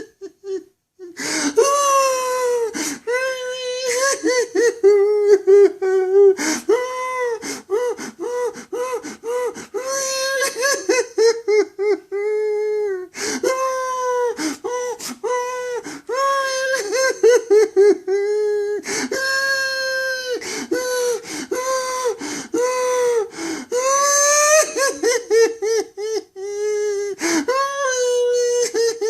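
A grown man crying in a high, baby-like falsetto, sobbing and wailing in short broken bursts with catches of breath.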